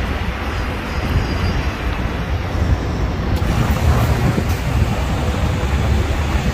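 Wind buffeting the microphone: a loud, fluctuating low rumble with a rushing hiss over it.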